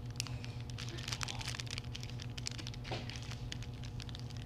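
Clear plastic wrapper of a pack of modelling clay crinkling and crackling as fingers handle and pick at it, a string of small irregular crackles.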